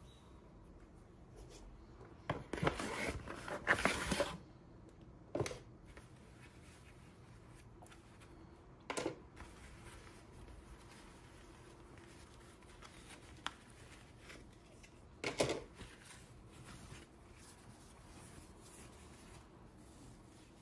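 Hands handling and unfolding fabric briefs on a wooden table: short bursts of cloth rustling, the longest and loudest about two to four seconds in, with briefer ones around five, nine and fifteen seconds.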